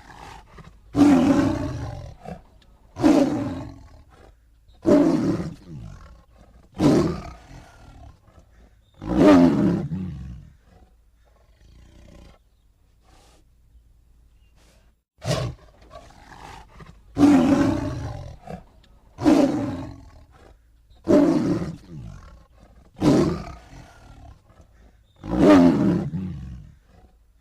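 Tiger roaring: a string of loud, deep roars of about a second each, roughly one every two seconds, with a pause of a few seconds in the middle.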